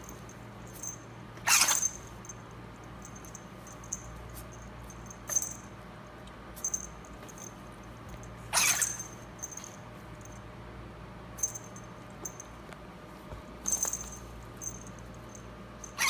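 A ferret sneezing again and again in short, sharp bursts. The loudest come about a second and a half in, near the middle and at the very end, with smaller ones between.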